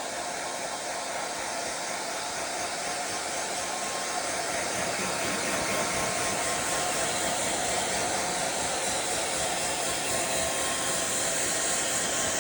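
Handheld hair dryer blowing steadily, with a faint steady motor whine under the rush of air. It grows gradually louder from about four seconds in.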